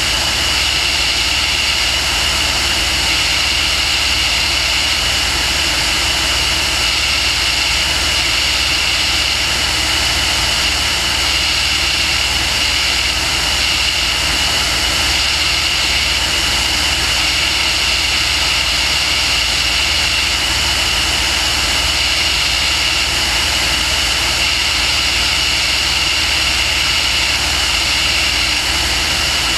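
Aircraft in flight heard from on board: a steady, unchanging engine and propeller noise with a high whine running through it.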